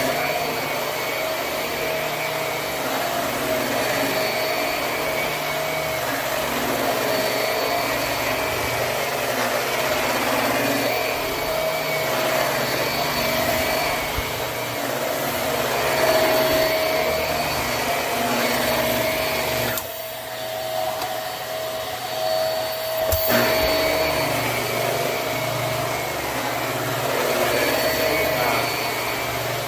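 Hoover High Performance Swivel upright vacuum cleaner running steadily over carpet, with a steady motor whine. About two-thirds of the way through, the deeper part of the sound drops away for about three seconds and ends in a sharp click, then the full running sound returns.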